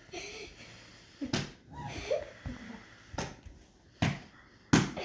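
A sneaker carried in a small pet's mouth knocks against the floor in four sharp thumps spread over a few seconds, the last the loudest.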